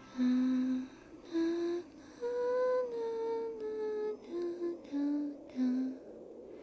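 A slow, soft solo melody of about eight single held notes, each about half a second long, gently rising and falling in a lullaby-like line.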